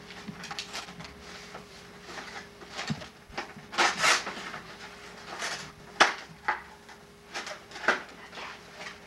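Paper and cardboard packaging rustling and crinkling in short, irregular bursts as a toy is unwrapped and pulled from its box, over a steady low hum.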